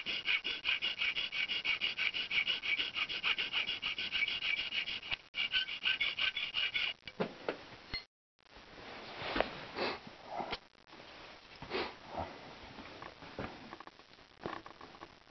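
Steel hand file rasping across the pan of a No. 1.5 foothold trap in quick, even back-and-forth strokes, filing out the night-latch notch. The filing stops about seven seconds in. After that come scattered light clicks and knocks of the metal being handled.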